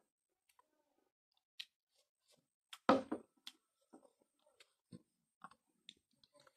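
Eating by hand, rice with curry: scattered soft mouth clicks and chewing, with one louder click about three seconds in.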